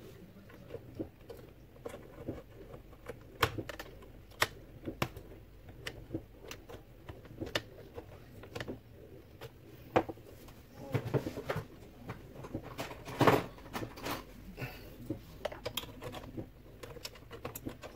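Irregular clicks and taps of a screwdriver and fingers on the plastic parts of a partly dismantled Saeco Xsmall espresso machine, with a few louder knocks about two-thirds of the way through.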